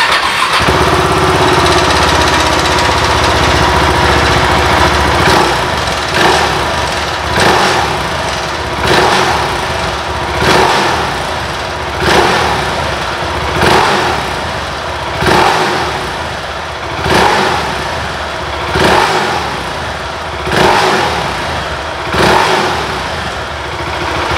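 Husqvarna Vitpilen single-cylinder engine on its stock exhaust, started and idling for a few seconds, then blipped on the throttle about a dozen times in short, evenly spaced revs.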